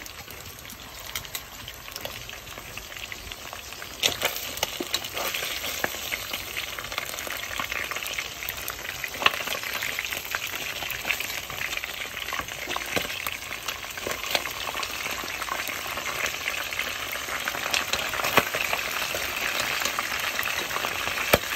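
Whitefish pieces deep-frying in hot oil in a pot: steady sizzling and crackling with many sharp pops of spattering oil, louder from about four seconds in.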